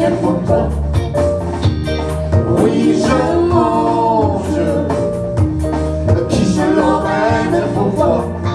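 Live band playing a song, with singing over a steady bass line, guitar and drums.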